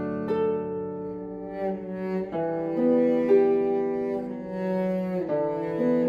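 Cello and harp duet: the cello plays long bowed notes, each held a second or two, over plucked harp notes.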